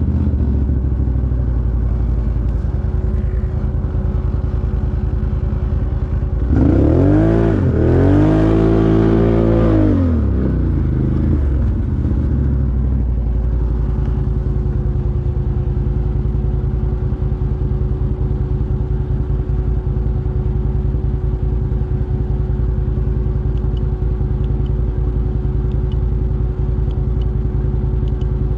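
ATV engine running at a steady speed. About seven seconds in it revs up and falls back over roughly three seconds, then settles into a steady drone again.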